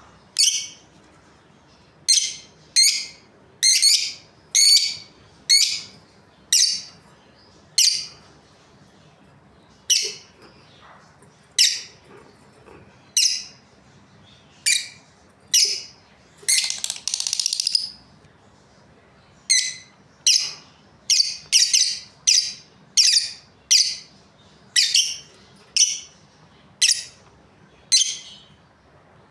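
Budgerigars chirping: a steady string of short, sharp, high chirps, about one or two a second, with one longer, scratchy call about 17 seconds in.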